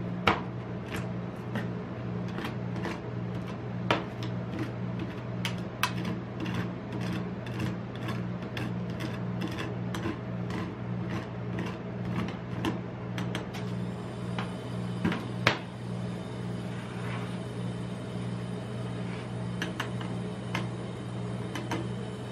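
Metal spatulas tapping and chopping on a steel ice cream roll cold plate, working chopped Snickers into a frozen ice cream base, with about one or two sharp taps a second. The taps thin out about two-thirds of the way in, as the spatula scrapes and scores the spread into strips. A steady low hum runs underneath.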